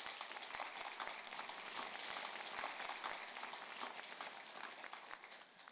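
Audience applauding: a steady patter of many hands clapping that fades out near the end.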